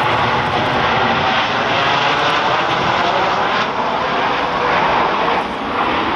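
Blue Angels F/A-18 Super Hornets in four-ship diamond formation passing with landing gear down, their GE F414 jet engines making a loud, steady roar with a faint whine.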